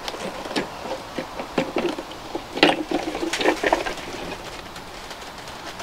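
Plastic base shell of a Flymo Easilife 150 robot lawnmower being pulled loose and lifted off its chassis: a run of sharp plastic clicks and knocks, loudest and busiest about two and a half to four seconds in.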